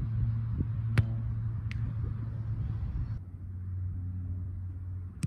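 Steady low rumble and hum with a few sharp knocks, the loudest about a second in and another near the end.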